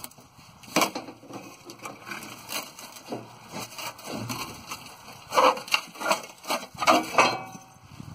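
Exhaust tip being worked loose from a rusted muffler with hand tools: a run of irregular cracks, scrapes and clanks of corroded metal, busiest about five to seven seconds in.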